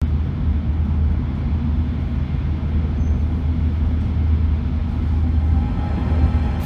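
Cabin noise inside an E5 series Shinkansen running at high speed: a steady low drone under a constant rushing noise.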